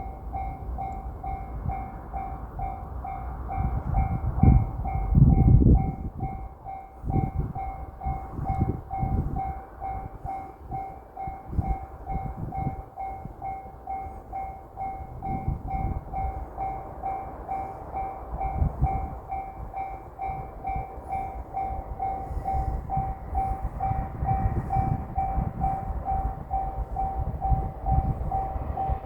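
Japanese level-crossing warning bell ringing its rapid, steady kan-kan, the signal that a train is approaching. Under the bell is low rumbling that comes and goes, loudest about five seconds in.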